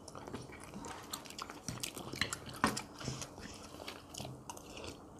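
People chewing and biting food close to the microphone at a meal, with scattered small clicks.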